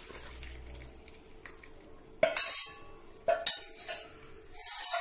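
Steel ladle scraping and clinking against stainless-steel vessels as thick sambar is scooped and poured from the cooking pan into a serving bowl. Three or four sharp metal clinks come in the second half, one ringing briefly.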